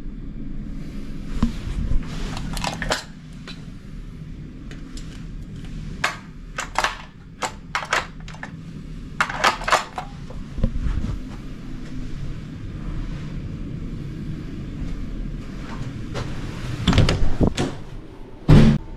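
Scattered clicks, knocks and handling noise of someone moving about a small room with a handheld camera, over a low steady hum, with two heavier thuds near the end.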